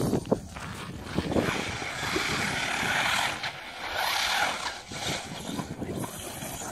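Electric whine of a 1/10-scale RC car's brushless motor as it drives across icy, snow-covered track, louder for a couple of seconds midway, over wind rumbling on the microphone. Two short knocks come in the first second and a half.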